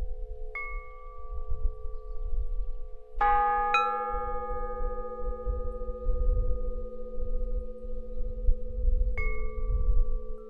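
Metal chimes struck several times and left ringing: one strike about half a second in, a cluster of tones together about three seconds in, and another strike near nine seconds, each note holding on long, over a low uneven rumble.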